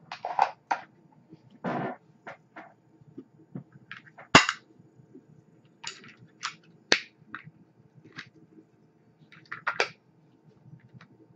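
Sharp, irregular clicks and knocks of a box vape mod being handled while its batteries are swapped for fresh ones, the sharpest click about four seconds in.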